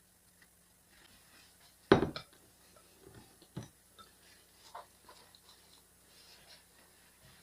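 Kitchen dishes and utensils clinking and knocking: a sharp clatter with a quick second hit about two seconds in, then a few lighter knocks.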